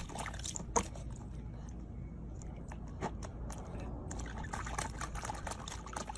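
Water splashing and dripping in a small plastic tub as a corgi puppy paws and dunks its face in it, with irregular splashes and drips throughout.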